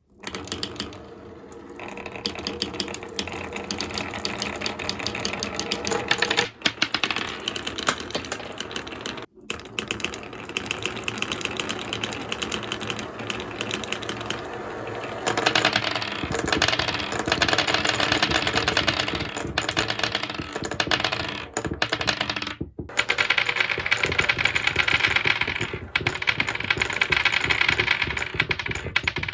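Many glass marbles rolling and clattering down wooden marble-run tracks, a dense rapid rattle of small clicks and clacks. It breaks off briefly about nine seconds in and again around twenty-three seconds, and is louder in the second half.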